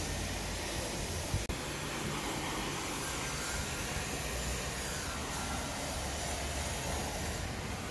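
Steady rushing hiss with a low rumble underneath, and a single sharp click about a second and a half in as the car door is opened.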